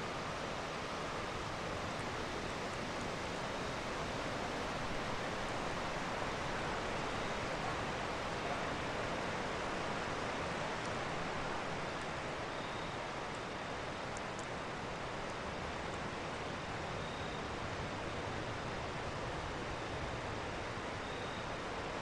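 Steady, even rushing outdoor background noise, with a few faint, short high tones in the second half.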